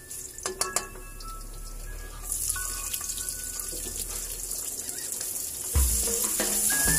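Minced garlic sizzling in oil in a nonstick wok, with a spatula tapping and scraping the pan. From about two seconds in a louder, steady sizzle sets in as sliced onions hit the hot oil.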